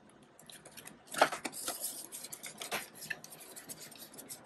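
Hands handling paper banknotes and a cash envelope in a plastic ring binder: rustling and crinkling with small clicks, loudest about a second in and again near three seconds.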